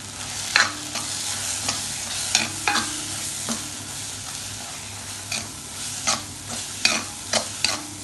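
Onion-tomato masala sizzling in a pan while it is stirred with a steel spoon, with chilli powder being fried into it. The spoon scrapes and knocks against the pan a dozen or so times at an uneven pace.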